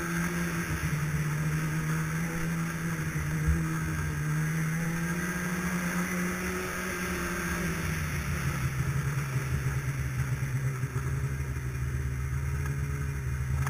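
Snowmobile engine running steadily under way, its note dropping to a lower pitch about eight seconds in. A single short knock about three and a half seconds in.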